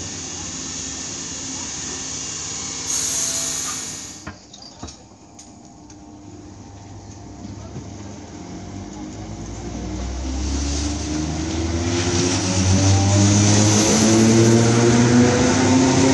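Electric multiple-unit trains at a platform: a train running past for the first few seconds, cutting off abruptly; then from about ten seconds an electric train's traction motors whining, rising steadily in pitch and getting louder as it accelerates.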